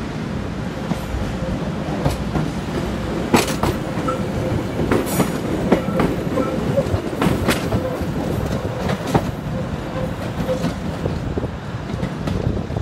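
A 1938 ex-London Underground tube stock electric train running past over jointed track and points, with a steady rumble and irregular sharp wheel clacks every second or so.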